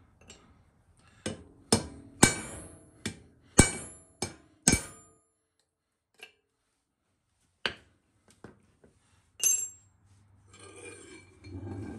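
Ball-peen hammer driving a chisel against the steel bearing retaining ring on a rear axle shaft to break the ring loose: a run of sharp, ringing metal blows, fast and loud for the first five seconds, then a pause and a few more, one of them hard about nine and a half seconds in. Near the end come a low scraping rattle and clinks of metal parts being handled.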